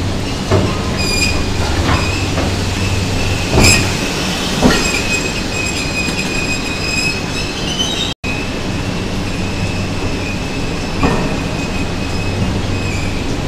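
Talgo coach wheelsets rolling through a track gauge changer that shifts them from 1435 mm to 1520 mm, with a steady high squeal and occasional sharp metal clunks.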